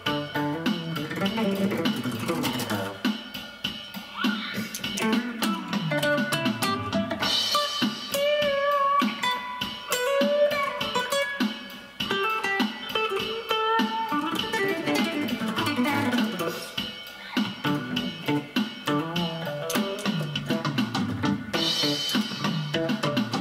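Acoustic guitar played through a Zoom G1 Four effects pedal into a Roland Cube-10 amp on its JC Clean setting with a touch of reverb, picking melodic lines and chords.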